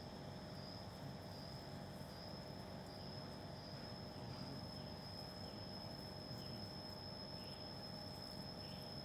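An insect, likely a cricket, trilling as one steady, unbroken high-pitched tone over a faint background hiss.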